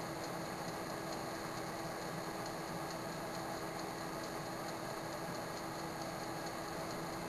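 Countertop convection oven running: a steady fan hiss with a constant hum, and a few faint ticks.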